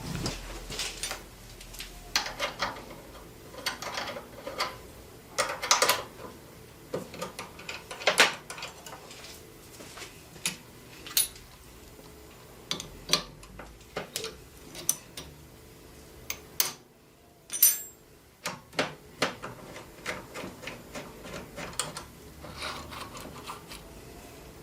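Irregular metallic clinks, clicks and knocks of metal parts in a machine shop, a few sharp ones louder than the rest, broken by a short near-silent gap about two-thirds of the way through.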